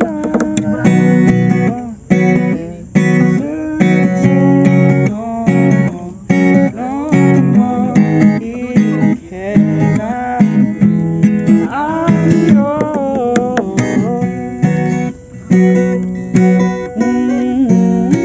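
Acoustic guitar music, strummed chords with a melody line over them.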